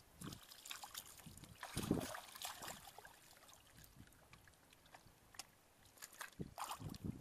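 Irregular splashing and sloshing of hands and feet working in shallow, muddy water, loudest about two seconds in and again near the end.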